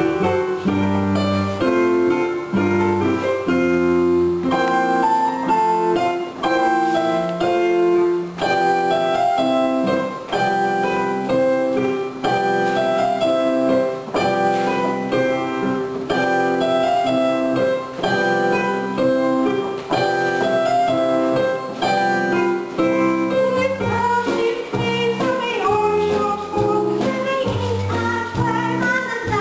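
Live piano accompaniment on a stage keyboard playing an instrumental stretch of a show tune in a steady, even rhythm, with voices starting to sing near the end.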